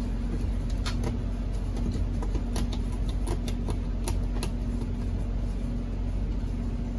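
Steady low mechanical hum with a held tone, over which come irregular sharp clicks and squeaks as a hand tool and palms work the rubber gasket of a new bus windshield into place; the clicks fall mostly in the first few seconds.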